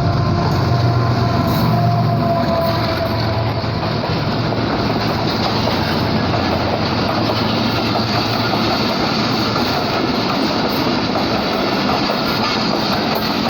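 Passenger express train passing at speed: the drone of its GE GEU40 diesel-electric locomotive fades over the first few seconds, then the coaches roll by with a steady, loud rumble of wheels on rail.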